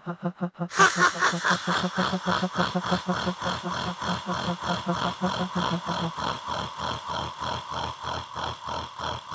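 Cartoon voices laughing in rhythmic ha-ha pulses, about four a second. A second, brighter laugh joins under a second in; the lower laugh stops about six seconds in while the brighter one keeps going.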